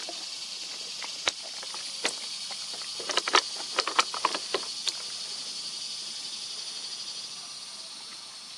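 Steady high-pitched insect chorus, with a run of sharp clicks and ticks about one to five seconds in.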